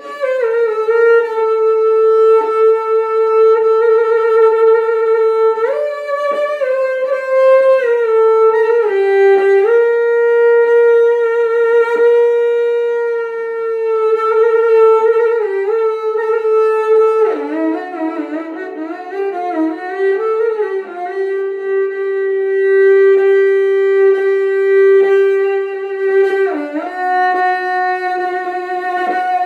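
Music: a slow melody of long held notes with vibrato, with a second lower part joining about two-thirds of the way in.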